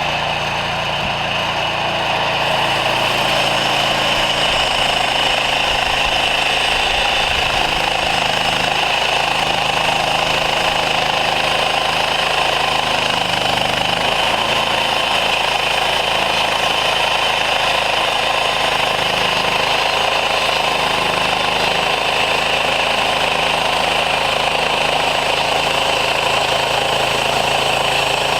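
Woodland Mills portable band sawmill running at full speed, its gas engine and band blade cutting through an oak log in one long, steady pass. The sound starts abruptly just before and stays loud and even throughout.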